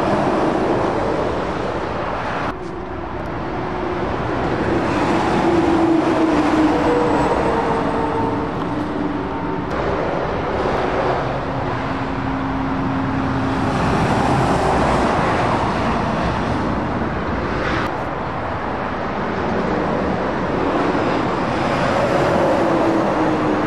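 Heavy lorries passing one after another on a dual carriageway: diesel engines droning over tyre and road noise, each rising and fading as it goes by. The sound changes abruptly about two and a half seconds in.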